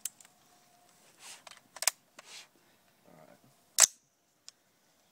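AR-15 style carbine being handled and readied to fire: a few soft clicks and rustles, then one sharp, loud metallic clack about four seconds in and a small tick after it.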